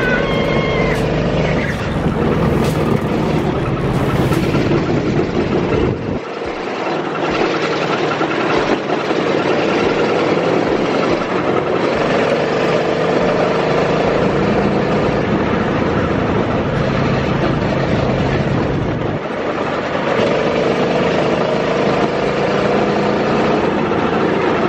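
Engine of a small open vehicle running at speed, with wind rushing over the microphone. The engine pitch drifts slowly up and down, and the low rumble of the wind drops away briefly about six seconds in.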